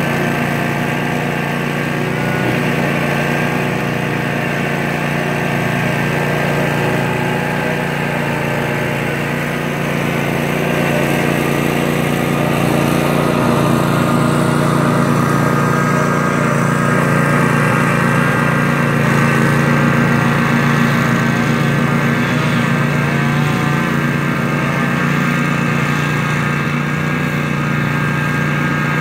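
Cub Cadet riding lawn mower's engine running steadily while mowing tall grass, growing louder in the middle as the mower passes close by.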